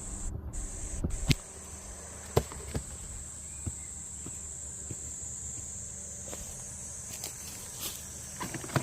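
Insects chirring in a steady high-pitched drone, with a few scattered light clicks and rustles, as of movement through leaf litter.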